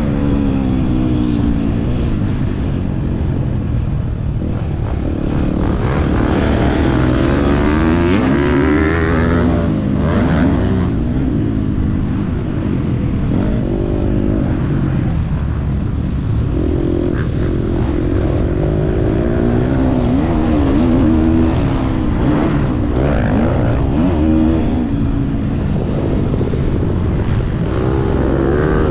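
Motocross bike engine ridden hard on a dirt track, its revs rising and falling again and again as it accelerates, shifts and backs off, over a steady rush of wind and rumble.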